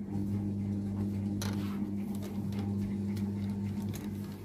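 Steady low mechanical hum, with a faint knock about a second and a half in.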